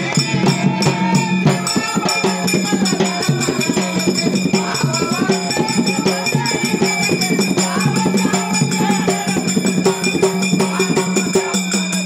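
Men singing a folk song over a hand-played barrel drum and jingling percussion that keep a fast, even beat, with a held low drone underneath.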